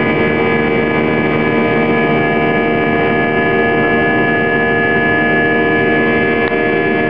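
Airbus A320 cabin noise heard just ahead of the right engine in flight: the IAE V2500 turbofan's steady drone with a stack of steady whining tones over the rush of air.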